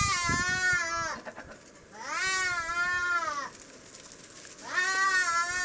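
Goats bleating: three long, high calls in turn, each held for about a second and a half with a slight rise and fall in pitch. The first ends about a second in, and the third begins near the end.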